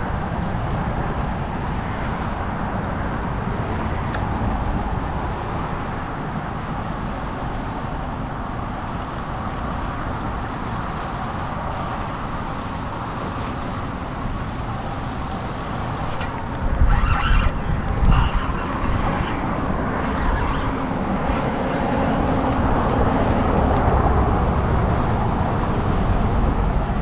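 Steady road traffic rumbling past on a bridge, with low wind rumble on the microphone. A short clatter of sharp knocks comes about seventeen seconds in.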